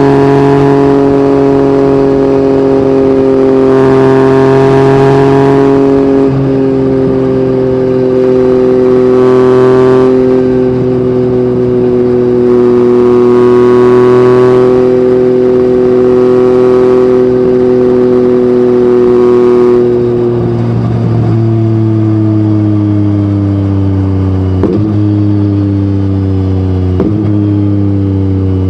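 Yamaha MT-09's three-cylinder CP3 engine through an Akrapovic exhaust, running at steady revs with the throttle opened up several times in louder surges. About two-thirds of the way in, the revs start dropping steadily as the bike slows, with a few brief breaks in the tone.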